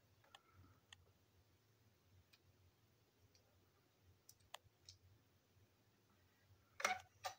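Sparse faint clicks of small plastic toy-train parts being handled and pulled apart, with a louder pair of clicks near the end.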